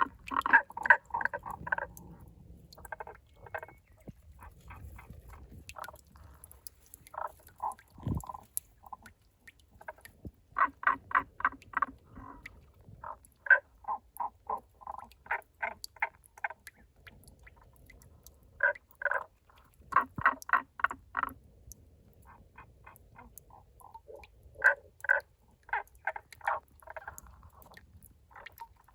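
Tago's brown frogs calling: bouts of quick, evenly spaced short croaking notes, several a second, repeating with short pauses, some bouts fainter than others. A single low thump about eight seconds in.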